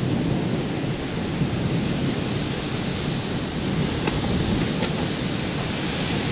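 Low rumble of distant thunder from a lingering thunderstorm under a steady high hiss, with no sharp thunderclap.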